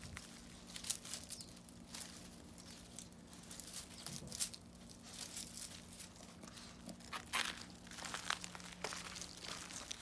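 Irregular rustling and crackling of ivy, ferns and dry leaves as a Pomeranian noses and pushes through the garden ground cover, with a few crunches on gravel.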